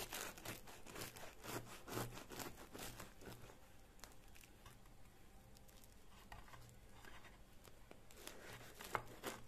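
Kitchen knife sawing through the crust of a freshly baked loaf, the crust crackling and crunching in short strokes. The strokes are busiest in the first few seconds and again near the end.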